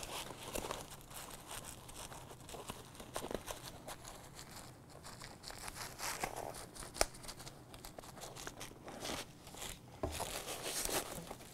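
Nylon pouch fabric and shock cord being handled: soft rustling and crinkling with scattered small clicks and taps, one sharper click about seven seconds in.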